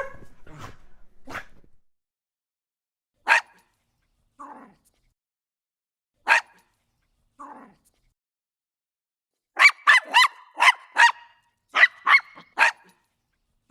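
A dog barking: single sharp barks a few seconds apart, with softer, lower calls between them, then a quick run of about ten barks near the end.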